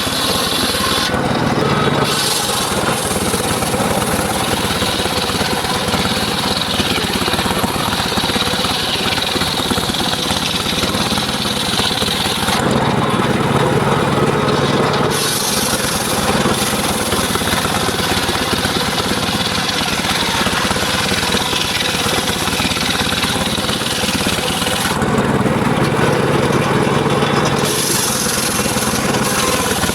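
Engine-driven mobile circular sawmill running and cutting mahogany, with a steady engine hum under the hiss of the blade in the wood. The cutting noise thins twice, around 13 s and 25 s in, leaving mostly the engine hum.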